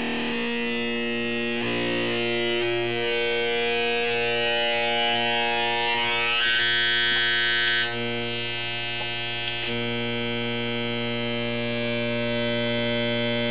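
A homemade synth's buzzy square-like tone, from a 4093-based oscillator through a simple TL071 op-amp voltage-controlled filter, holds one low pitch while its overtones shift as the filter is adjusted. About halfway through the tone brightens with a rising sweep, then the bright upper overtones cut off suddenly.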